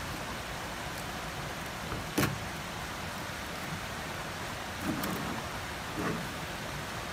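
Kitchen knife working along a small whiting on a plastic cutting board, butterflying it from the back. There is one sharp tap about two seconds in and two softer knocks near the end, over a steady rushing noise of flowing water.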